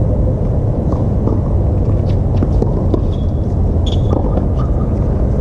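Steady low rumble of outdoor background noise, with a few faint sharp knocks of a tennis ball struck by rackets in a rally, and two brief high squeaks, tennis shoes on the hard court, about three to four seconds in.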